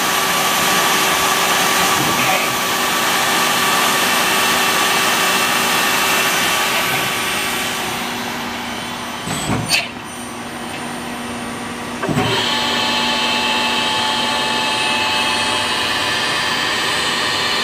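Steady whirring hum and hiss of running machinery, carrying several fixed tones. It fades somewhat from about seven seconds in, with a knock near the middle, then jumps back to full level with another knock about twelve seconds in.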